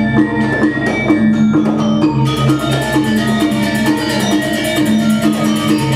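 Balinese gamelan playing, bronze metallophones striking notes in a steady pulsing rhythm. About two seconds in, a fast, bright layer of quick strokes joins in and the music becomes busier.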